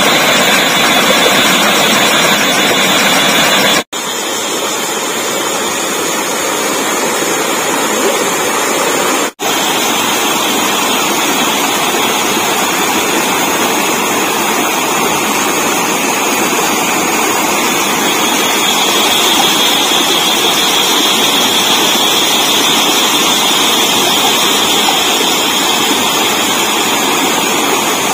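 Small forest stream rushing steadily over rock ledges and little cascades. The sound breaks off for an instant twice, about 4 and 9 seconds in.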